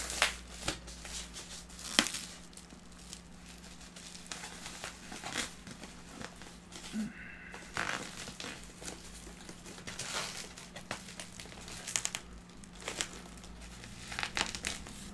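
Corrugated cardboard wrapping and a plastic bag crinkling and rustling as a parcel is pulled apart by hand, with scattered sharp crackles and bits of tearing. The loudest crackle comes about two seconds in.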